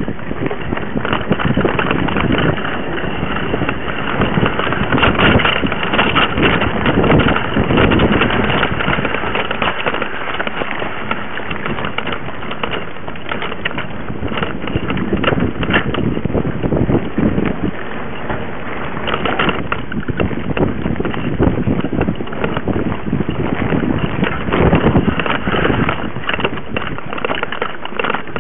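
Mountain bike ridden along a dirt trail, heard through a camera mounted on the bike: a continuous rattle of knocks and clatter from the bike over bumps, with tyre noise and wind on the microphone.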